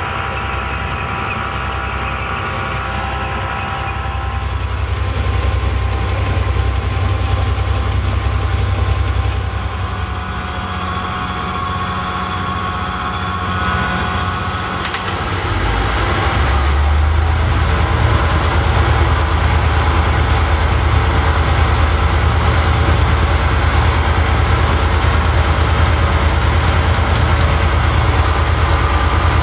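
Cab sound of a T44 diesel-electric locomotive hauling a freight train: the EMD twelve-cylinder two-stroke diesel throbs steadily under the noise of wheels on rail. It gets louder a little past halfway through.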